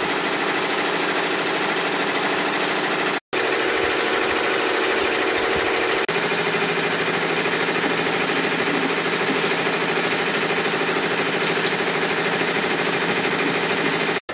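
Embroidery machine stitching at a steady rapid rate, broken by a brief drop-out about three seconds in.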